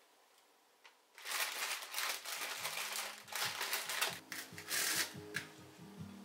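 Plastic vegetable packaging rustling and crinkling in several quick bursts as it is handled, starting about a second in. Soft background music starts underneath about halfway through.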